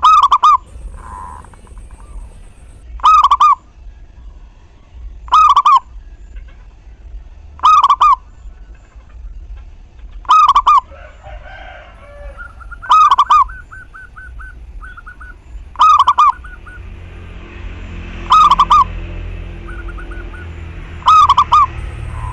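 Zebra dove (perkutut) singing, one short trilled cooing phrase about every two and a half seconds, nine phrases in all. A fainter, quicker run of short notes sounds between the phrases in the second half.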